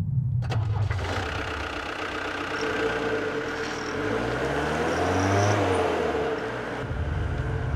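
A small van's engine revving as the van pulls away, its pitch rising and falling as it accelerates, after a sharp knock about half a second in.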